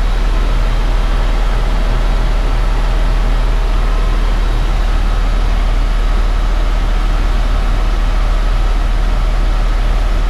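Helicopter engine and rotor running steadily in flight: a loud, even drone over a deep, constant hum.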